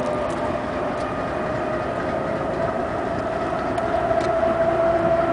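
Diesel train locomotive idling: a steady mechanical hum with a few held tones, a lower tone joining and growing slightly louder about four seconds in. Wind rumbles on the microphone underneath.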